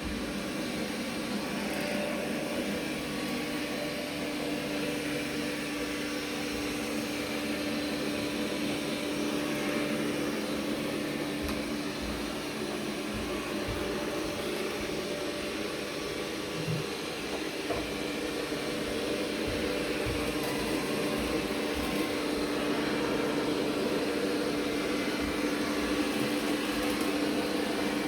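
Vacuum cleaner running steadily, a continuous whooshing drone with a steady hum. Occasional soft low bumps sound underneath.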